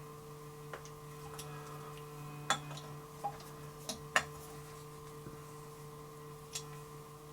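A handful of light metallic clicks and ticks from a tool working the header's mounting screws as they are snugged down, spaced irregularly, over a steady low hum.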